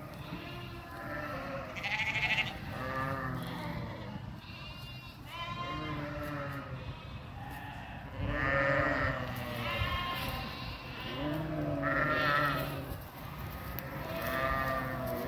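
A large grazing flock of sheep bleating, many wavering calls overlapping one another throughout, with louder nearby bleats about two seconds in, again around eight to ten and twelve seconds, and near the end.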